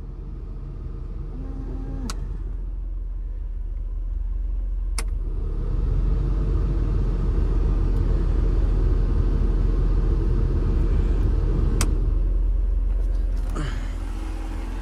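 Mercedes W124 heater/AC blower fan running, a steady rush of air that gets louder about five seconds in as it is turned up to a higher speed and drops back to the lower speed near the end. A few sharp clicks come along the way.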